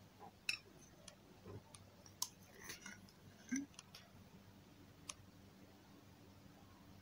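Plastic spoon clicking and tapping against a glass mug and yogurt containers while yogurt is scooped: a scatter of sharp, light clicks over the first five seconds, then quiet hum.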